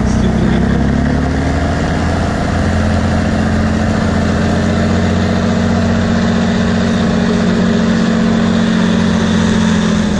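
Heavy off-road trial truck's diesel engine working hard, its pitch rising over the first couple of seconds and then held steady.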